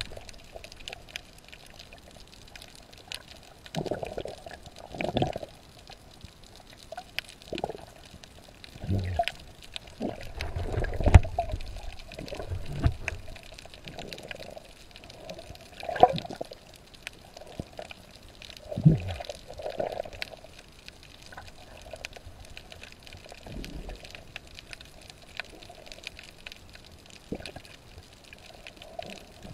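Sea water sloshing and bubbling around a camera just below the surface, heard underwater and muffled, in irregular swells with scattered small clicks; the loudest swells come around the middle.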